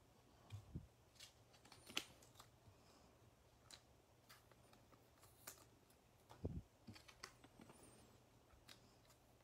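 Faint scattered clicks and light taps of trading cards being handled and set down on a table, with a soft thump about six and a half seconds in.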